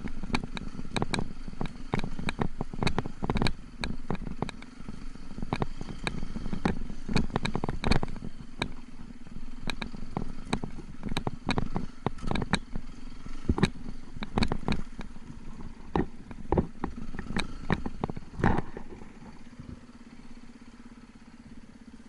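Beta enduro motorcycle running at low revs, with frequent sharp knocks and clatter throughout; it quietens over the last few seconds.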